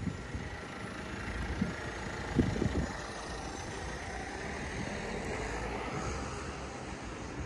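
A car running close by on a town street, a steady engine and road hum with a few low thumps in the first three seconds.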